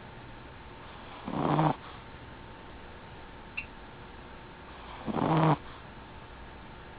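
Smooth-coat Chihuahua snoring in its sleep: two snores about four seconds apart, each about half a second long, with a small click between them.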